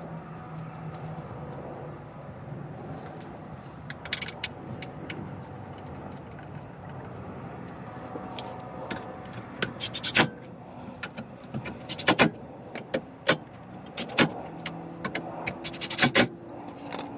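Irregular sharp clicks, clinks and knocks of hand work on a car's plastic underbody guard, its tabs and bolts being worked loose. The strikes grow louder and more frequent in the second half, with the loudest about ten, twelve and sixteen seconds in.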